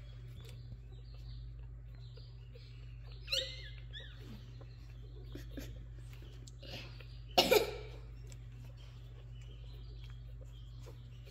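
Newborn Jack Russell Terrier puppies giving a few faint, short squeaks, over a steady low hum. A little past halfway comes a louder, short two-part burst like a cough.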